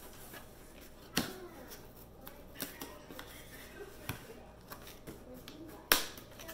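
Cardboard shipping box being handled and cut at with a knife: scattered scrapes and small clicks, with two sharp knocks, one about a second in and a louder one near the end.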